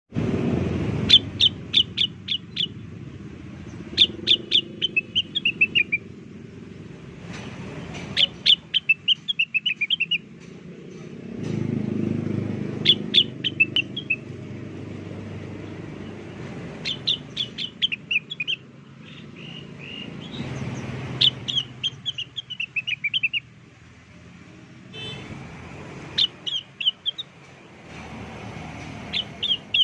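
Cucak wilis (rengganis) bird song used as a bird-catching lure call. About every four seconds a phrase of quick, sharp high notes runs into a short series of falling notes. A low rumble sits underneath and grows louder at times.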